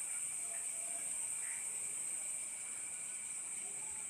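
Steady background hiss with a constant high-pitched whine running under it; no speech.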